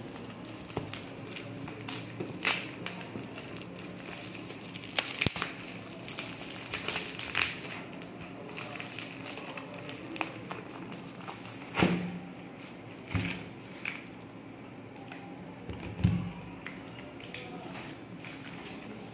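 Plastic packaging and bubble wrap crinkling and crackling in irregular bursts as it is pulled open by hand, with a few dull thumps as the box and inserts are handled.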